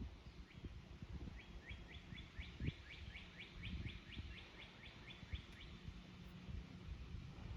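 A small bird singing a quick trill of about fourteen evenly spaced notes, roughly three a second, over a low rumble of wind on the microphone.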